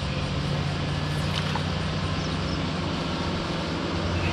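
Steady low drone of an engine running, a few fixed low pitches held evenly throughout.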